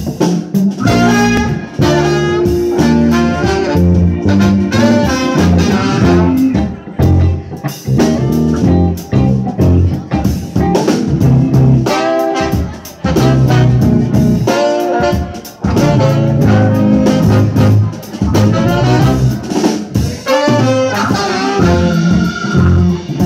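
Live band playing: a horn section of saxophone, trumpet and trombone plays a melody together over electric guitars and a drum kit.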